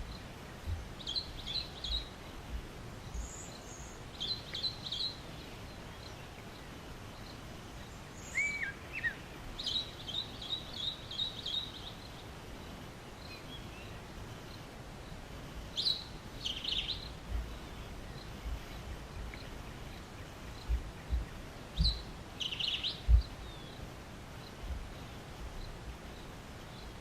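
Songbirds chirping in short repeated trilled phrases, with a few higher notes and one sliding whistle, over steady outdoor background noise. Scattered low thumps on the microphone, the loudest about 23 seconds in.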